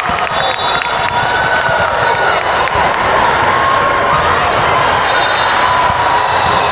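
Gym ambience at a volleyball match: a steady hubbub of voices, with a volleyball bouncing and being struck on the hard court.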